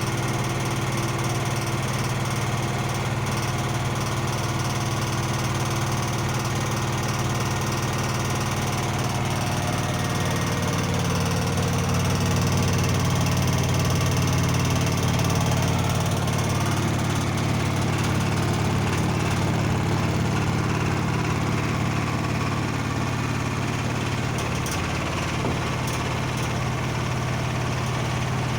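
Blomberg washing machine spinning with a loud, steady low hum and rumble. The noise is abnormal for the machine, bad enough that a warranty repair was requested.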